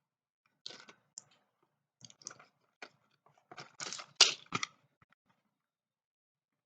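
Packaging of Mucinex DM tablets being handled: a run of irregular crackles and clicks, thickest and loudest about four seconds in, then stopping.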